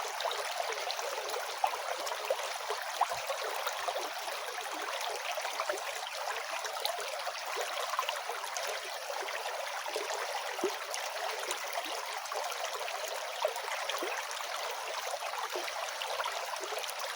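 River water flowing steadily: a continuous rushing hiss with little low rumble, dotted with small sharp splashes.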